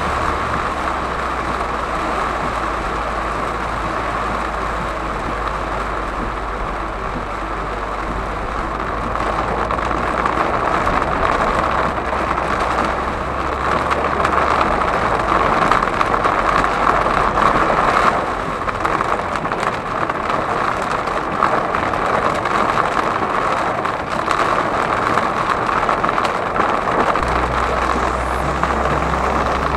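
Heavy rain pelting the windscreen and roof of a moving car, heard from inside the cabin, as a dense steady hiss with tyres on the flooded road. A low engine and road rumble sits under it, fading for a long stretch in the middle and returning near the end.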